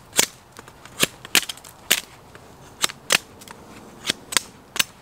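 A machete chopping at a wet deadfall branch in sharp, separate strikes, about two a second and often in pairs, trimming the small shoots off it.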